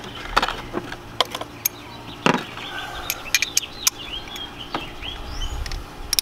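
Hand tools clicking and knocking at a socket extension in a spark plug well, scattered irregular taps. A few bird chirps come in around the middle.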